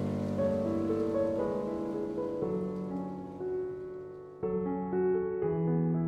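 Background piano music: a slow, gentle melody of single notes over held low chords, with a new, louder chord coming in about four and a half seconds in.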